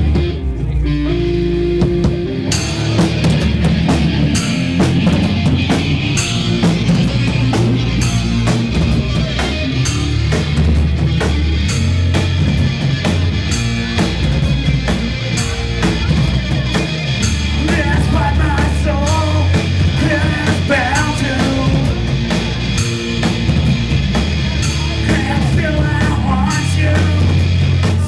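Loud rock music with electric guitar and bass, in a punk-rock style. A drum kit with crashing cymbals comes in about two and a half seconds in and keeps a driving beat.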